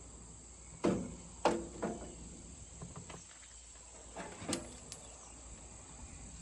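A few scattered knocks and clunks, as of car body parts being handled and set down, over a faint steady background hiss.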